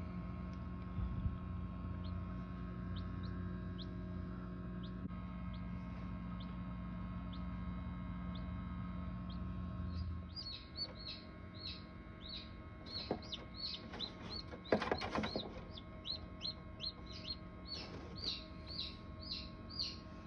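Newly hatched chicken chicks peeping in an incubator: short, high peeps over a steady electrical hum. About halfway through the hum drops away, the peeps grow louder and quicker, about two a second, and a couple of brief rustles come in between.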